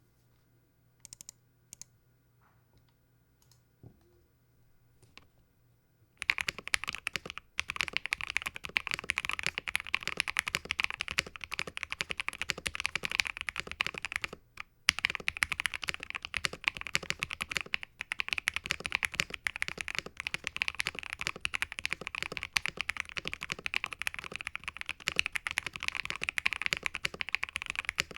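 Custom Jelly Epoch mechanical keyboard being typed on: a few scattered keystrokes, then steady fast typing from about six seconds in, with a brief pause near the middle. The board has lubed linear switches, GMK Froyo keycaps and a POM plate with PE foam, which the builder credits for its sound.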